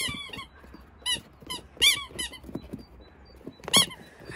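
Squeaky dog toy being chewed by a Pomeranian puppy, giving about six short squeaks, the loudest near the end.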